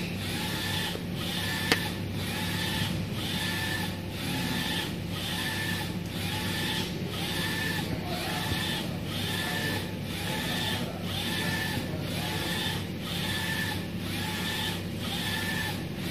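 UV printer printing: the print carriage shuttles back and forth over the box, each pass about a second long with a motor whine, broken by a short pause at each turn, over a steady machine hum.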